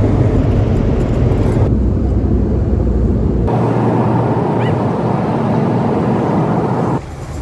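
Rushing, rumbling noise of an automatic car wash, its character changing abruptly a couple of times, with the deep rumble dropping away about halfway through.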